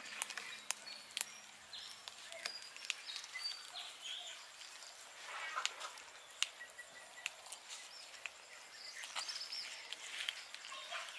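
Several cats eating fish off a paper plate: scattered sharp clicks and crunches of chewing on fish and bones, with faint bird chirps in the background.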